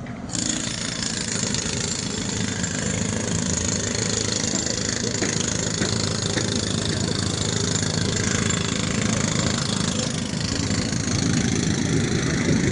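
A vehicle running: a steady mix of engine rumble and high hiss that starts abruptly about a third of a second in and grows slightly louder near the end.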